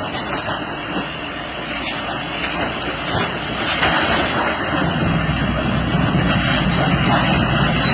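Loud, steady engine noise that grows louder and deeper about five seconds in.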